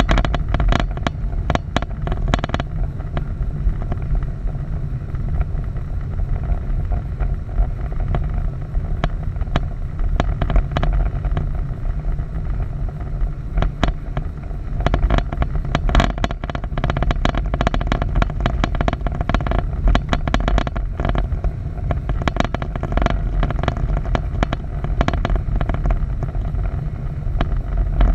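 Storm wind buffeting the microphone: a steady low rumble, with frequent sharp clicks and crackles throughout.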